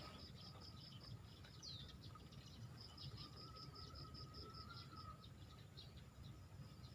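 Faint chirping of swamp wildlife: two runs of quick, evenly spaced high chirps, about five or six a second, with a thin steady whistle-like tone through the middle, over a low rumble.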